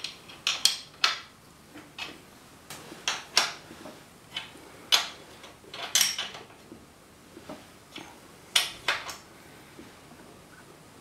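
Metal spanner clinking against a bicycle's rear axle nuts as they are tightened: irregular sharp metallic clinks, several in quick succession, as the tool is fitted and refitted on the nuts.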